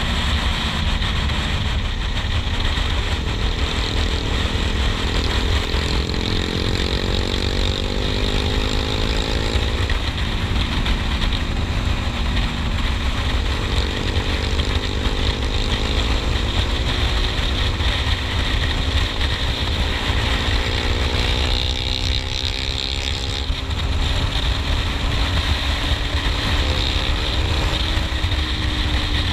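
KTM Duke 390's single-cylinder engine running at road speed under heavy wind rumble on the microphone. Its pitch climbs slowly under throttle and drops back about ten seconds in, then climbs again and drops about twenty-four seconds in.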